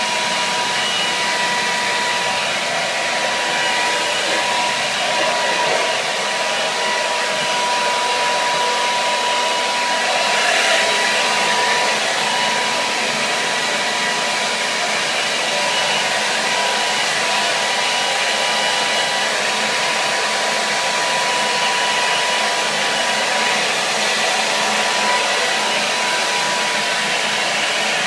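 Hair dryer running steadily: an even blowing hiss with a thin, constant whine in it.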